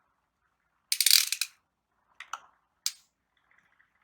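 Plastic Beyblade parts clicking: a quick run of ratchet-like clicks about a second in, then two single sharp clicks.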